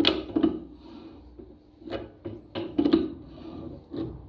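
An 18-inch pipe wrench clanking against a large steel hex nut as its jaws are fitted on and taken off: a series of short metallic knocks and clicks.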